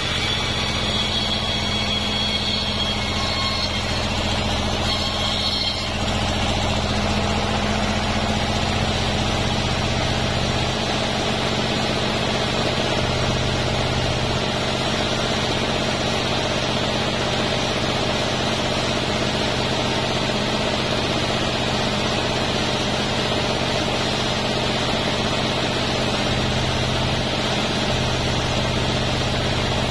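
Large bandsaw sawmill running steadily while its blade rips lengthwise through a durian-wood plank fed along the table; the sound changes character about six seconds in.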